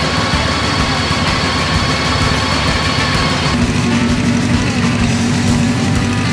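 Motorcycle engines running steadily; the sound changes abruptly about three and a half seconds in, to a steady low engine tone.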